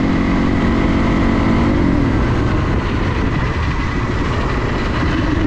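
Dirt bike engine running while riding along, its note shifting in pitch, with heavy wind buffeting on the microphone.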